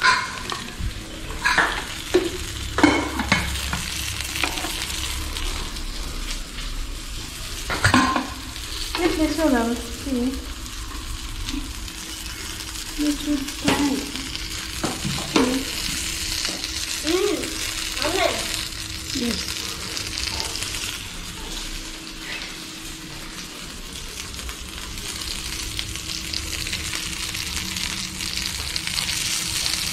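Masala-coated fish pieces shallow-frying in oil on a flat nonstick tawa, sizzling steadily, with clicks and scrapes from a steel spatula turning them. The sizzle grows louder near the end.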